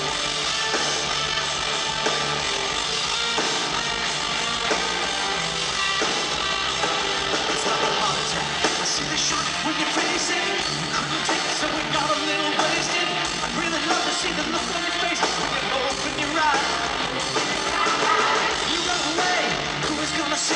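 Live hard rock band playing at full volume: distorted electric guitars, bass and drums with a lead singer, in a dense, even mix recorded from the arena floor.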